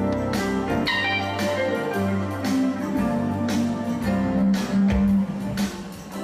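Live band playing an instrumental groove: drums, bass and guitar, with sustained chords held over a steady bass line.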